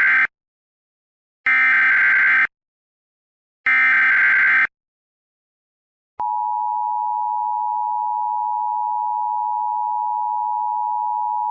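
Emergency Alert System SAME header: three one-second bursts of warbling data tones, the first already under way. After a pause comes the steady two-tone EAS attention signal, starting about six seconds in and heralding an Emergency Action Notification.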